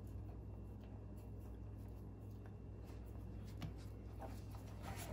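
Faint clicks and taps of hands handling a plastic trolling motor receptacle and its wire, over a steady low hum.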